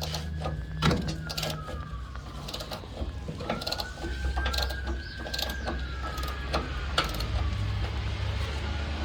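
Irregular metallic clicks and clinks of a ratchet and socket working the bumper bolts. Behind them a siren wails slowly up and down, rising and falling about every four seconds.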